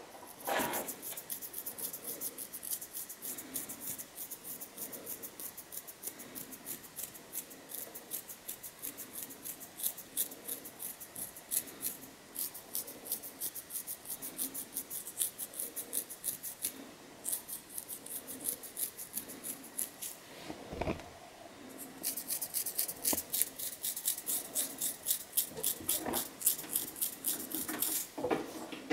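Long fingernails scratching through hair on a dry, dandruff-flaked scalp: a rapid run of crisp, high scratching strokes. They pause for a few seconds about two-thirds of the way in, with one dull knock, then start again.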